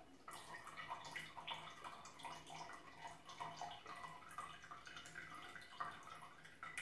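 Shaken cocktail trickling from a shaker tin through a bar strainer into a glass mug: a faint, uneven dripping pour.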